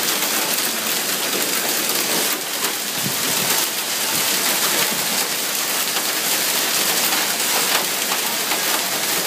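Heavy rain and hail pelting the pavement and parked cars: a dense, steady hiss.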